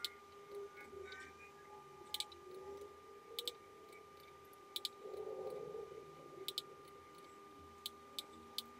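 Computer mouse clicks, faint and scattered, some in quick pairs, over a steady faint high tone.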